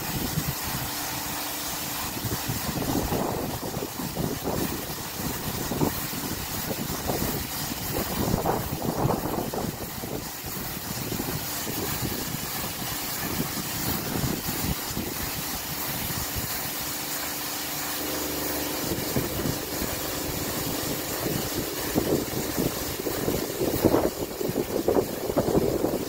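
Kärcher rollover car wash running empty: its large brushes spinning and water spraying, over a steady mechanical hum.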